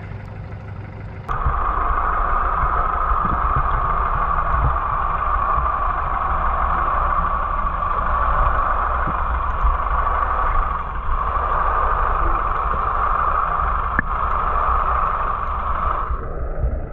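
Steady muffled rumble and hiss as heard through a camera lowered underwater among a shoal of coalies, cutting in abruptly about a second in.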